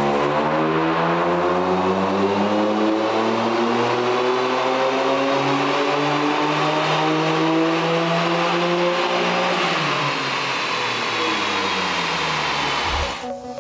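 Toyota GR Yaris's turbocharged 1.6-litre three-cylinder engine doing a power run on a chassis dyno, its revs rising steadily under load for about ten seconds. It then lifts off and the revs fall away near the end.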